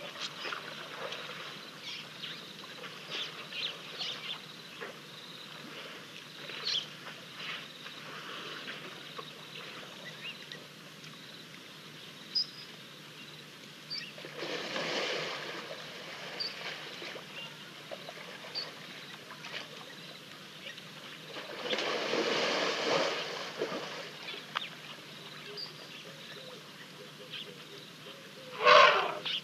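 African elephants wallowing in wet mud: two bursts of sloshing and splashing lasting a second or two each, and a short, loud splash near the end. Short high bird chirps come through in between.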